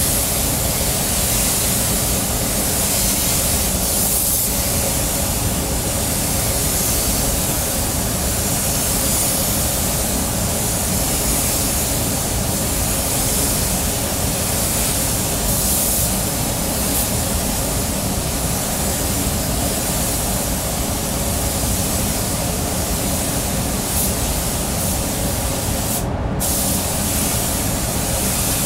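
Steady hiss of compressed air from a gravity-feed paint spray gun spraying paint onto a car body, cutting out for a moment near the end when the trigger is let go. A steady low hum runs underneath.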